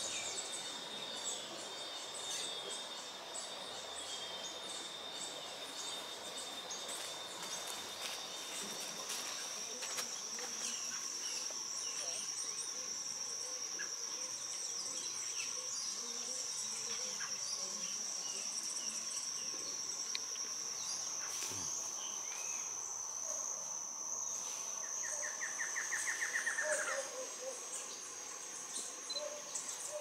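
Forest ambience: insects, with a steady high-pitched insect drone that starts about eight seconds in and carries on, scattered short bird chirps, and a fast run of repeated notes lasting about two seconds near the end, the loudest moment.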